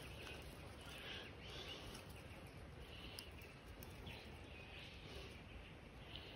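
Quiet bush ambience: a faint even hiss with soft, high chirps from distant birds recurring about once a second.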